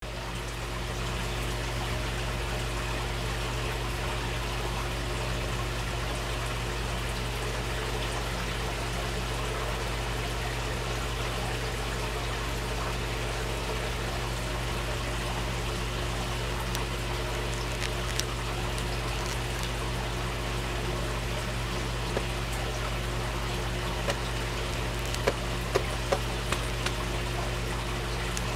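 Steady trickling of running water in a koi holding tub, over a low steady hum. A few sharp ticks near the end.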